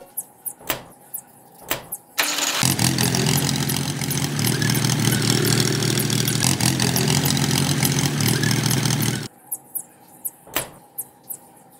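A tractor engine starts about two seconds in, runs steadily for about seven seconds, then cuts off suddenly. A few faint clicks come before and after it.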